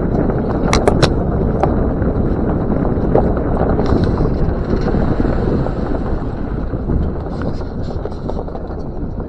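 Land Rover Discovery 2 driving slowly along a dirt trail, its engine and tyres making a steady rumble mixed with wind buffeting the body-mounted microphone. A few sharp clicks come about a second in.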